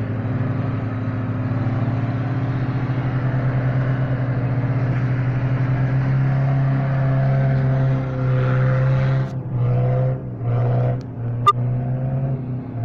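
Diesel 4x4 engine running hard under load as it pulls against another 4x4 on a tow strap, a steady pulsing drone. In the last few seconds the throttle comes on and off in short bursts, with one sharp knock near the end.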